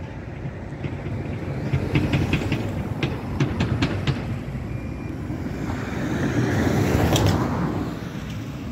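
Urban traffic noise with a steady low rumble: a quick run of metallic clanks about two to four seconds in, then a vehicle passing close by, swelling and fading near the end.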